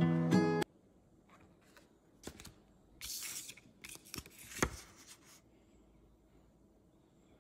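A printed photo handled between fingers: faint clicks and short papery rustles, the loudest about three seconds in. Just before this, a pop song cuts off abruptly.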